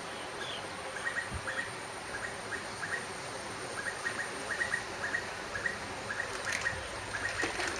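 Repeated short chirps from a small animal, two or three a second, over a steady faint high-pitched whine.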